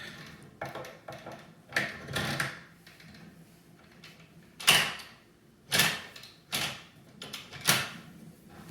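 China cabinet door lock and key being tried out: about seven sharp clicks and knocks spread over several seconds as the key is worked and the door handled. The lock has just been freed of a broken key fragment and works as it should.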